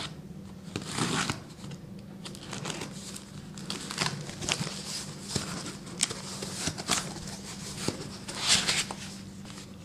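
Cardboard shipping box being opened: packing tape slit and torn with a thin metal tool, then the cardboard flaps and a foam packing sheet rustling and scraping as they are pulled back, in irregular crackles and scrapes.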